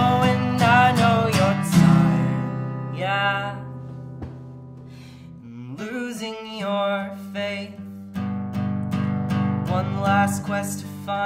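A male voice singing to his own acoustic guitar strumming. Midway the guitar thins out and the level drops for a couple of seconds, then the strumming and singing come back in.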